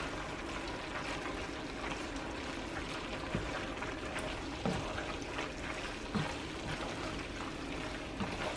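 Wooden spatula stirring and tossing saucy bow-tie pasta in a pot on a hot burner: steady wet stirring and light sizzling, with a few soft knocks of the spatula against the pot.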